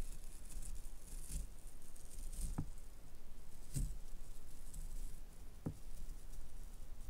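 Masking tape being slowly peeled off the paper's edge: a soft, continuous crackling, with a few light clicks.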